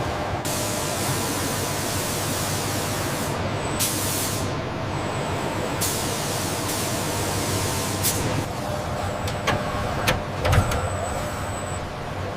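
Factory machinery running with a steady hum, broken by several stretches of hissing that start and stop abruptly, then a few sharp clicks and knocks near the end.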